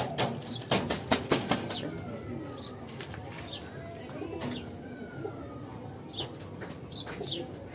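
Pigeon wings flapping and scuffling in a quick run of flutters and clicks over the first second and a half, then quieter, with a few faint short bird calls.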